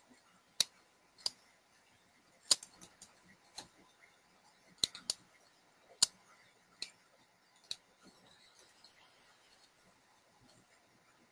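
Computer mouse and keyboard clicks: about nine separate sharp clicks, roughly one a second, that stop about two-thirds of the way through.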